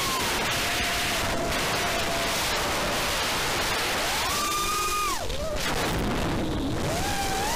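Brushless motors of an FPV racing quadcopter (EMAX RS2205), heard from the onboard camera: a whine that rises and falls with the throttle over a rush of wind and prop wash. The pitch climbs steeply about four seconds in, drops away a second later, then climbs again near the end.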